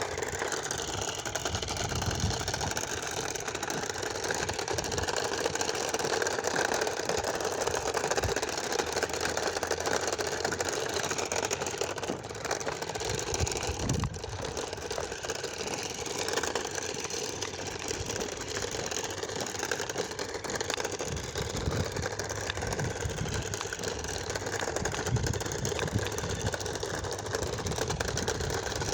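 Remote-control Batmobile toy car driving, its small electric motor and gears whirring steadily.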